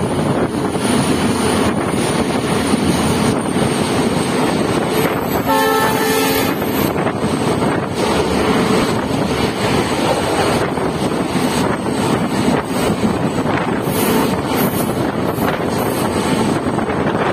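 Diesel-hauled express train running at speed, heard from inside a coach: a steady rush of wheels on rails and passing air. About five and a half seconds in, a horn sounds briefly, for about a second.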